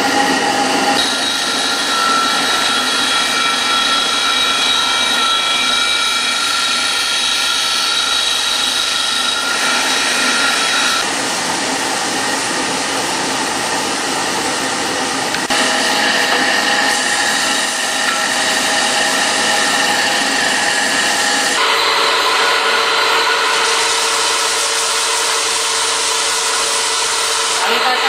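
Electric woodworking sanding machines running, first a disc sander and later a belt sander: a steady motor hum with the hiss of abrasive on wood. The sound changes abruptly several times as one machine or shot gives way to another.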